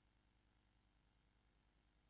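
Near silence: room tone, with a faint steady hum and a thin high whine.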